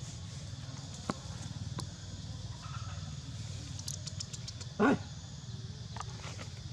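A single short, loud bark from an animal about five seconds in, over steady low background noise with a few faint clicks and a quick run of high ticks just before it.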